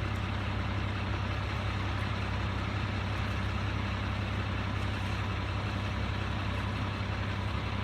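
Truck engine running steadily at an unchanging pitch, a deep drone.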